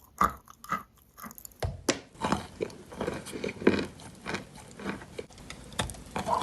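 Wet, sandy, grainy crunching: a damp gritty material being crushed in a series of short crunches. About 1.7 s in the sound changes to a denser, quicker run of crunches.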